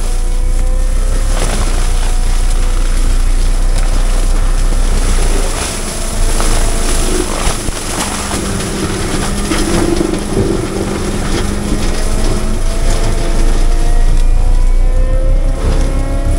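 Heavy equipment's diesel engine running under load, its pitch shifting up and down and climbing over the last few seconds.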